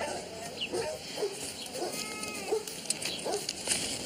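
Spanish goat crying out in short, repeated bleats, about two a second, with one longer cry halfway through, as it is held down and its throat is cut.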